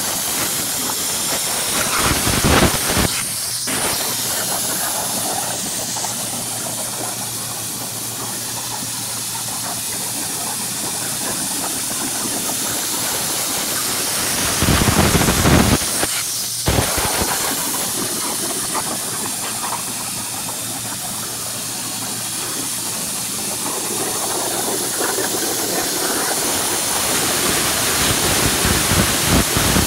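CNC plasma torch cutting steel plate: the arc and its cutting air make a continuous loud hiss, with a faint steady hum beneath. The hiss swells into louder rushes about two and a half seconds in and again around fifteen seconds in.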